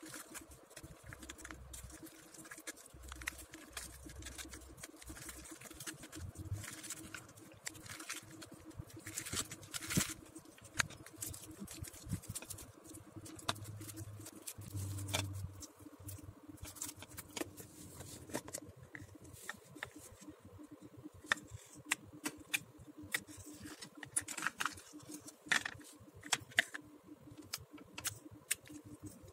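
Slime being squished and poked by hand in a plastic cup, giving irregular small sticky pops and clicks.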